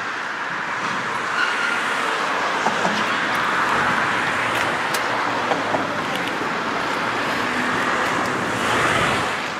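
Steady distant engine noise, a blended rushing drone with no single engine standing out, swelling a little near the end.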